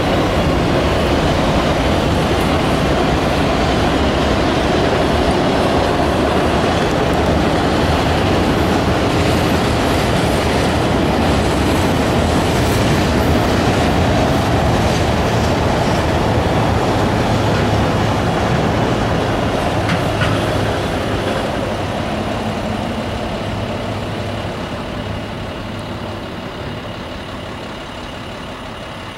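Autorack freight cars of a passing train rolling along the rails, a steady loud rumble that begins to fade about two-thirds of the way through as the train moves off.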